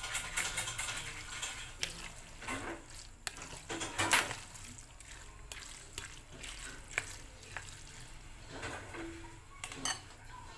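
A spatula stirring sago pearls, mango cubes and gelatin cubes in a glass bowl: wet, irregular squelching with scattered clicks, the loudest about four seconds in.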